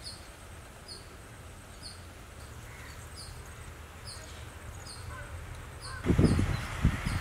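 Outdoor rural ambience with birds calling: a short high chirp repeats about once a second over a low steady rumble. About six seconds in, a louder low rumbling comes in.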